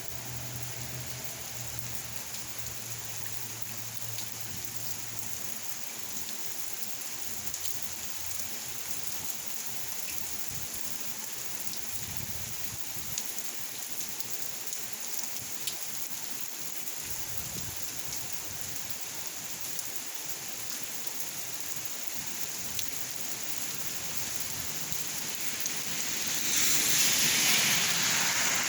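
Steady rain falling, a continuous hiss dotted with small drop ticks. About 26 seconds in it grows noticeably louder for the last couple of seconds.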